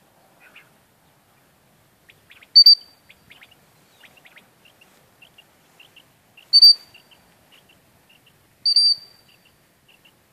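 A dog whistle blown in three short, shrill blasts, the second about four seconds after the first and the third two seconds later, with faint birds chirping throughout.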